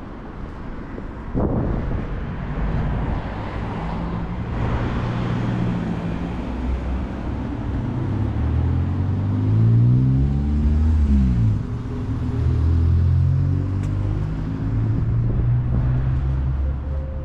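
Motor vehicle engines running as they pass by, their low hum shifting in pitch. About ten seconds in one passes close, its pitch falling as it goes by.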